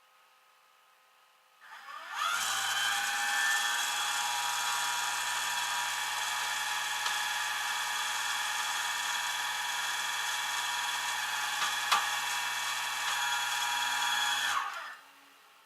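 A small electric motor spins up and runs at a steady high whine for about twelve seconds, with one sharp click near the end, then winds down and stops.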